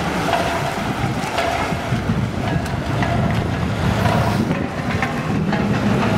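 Wind buffeting the microphone, a steady low rumble over a wash of noise, with a few faint short calls in the background.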